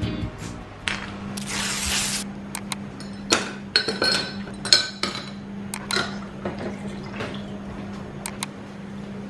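Ice cubes dropped one by one into a tall drinking glass, giving a run of sharp glass clinks, followed near the end by milk poured over the ice. A steady low hum runs underneath.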